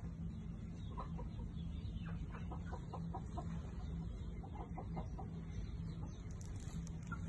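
Chickens clucking: a run of short clucks, thickest through the middle, over a steady low hum.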